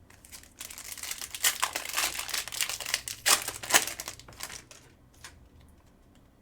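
Wrapper of a trading-card pack being torn open and crinkled by hand: a dense crackling that starts about half a second in, is loudest around the middle, and dies away to a few small crinkles near the end.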